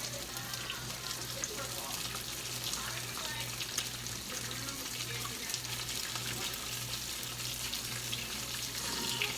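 Kitchen tap water running steadily into a sink.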